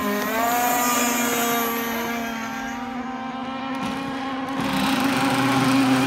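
Radio-controlled speedboats running flat out, their motors giving a high, buzzing whine whose pitch dips and then climbs just after the start before holding steady. Near the end it grows louder with added hiss.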